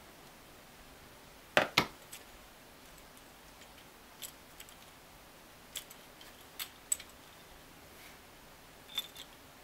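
Clicks and light clinks of small metal parts and hand tools as a sewing machine foot controller is handled and reassembled. Two sharp clicks come about one and a half seconds in, then a few scattered lighter ticks.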